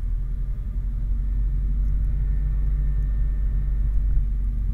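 Diamond DA-40F light aircraft's four-cylinder Lycoming piston engine running at taxi power, heard from inside the cockpit as a steady low drone that grows a little louder over the first second or so as the plane taxis onto the runway.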